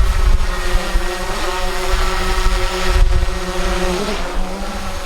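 DJI quadcopter drone hovering close by, its propellers giving a steady multi-tone whine that shifts in pitch a couple of times as it moves, over low wind rumble on the microphone.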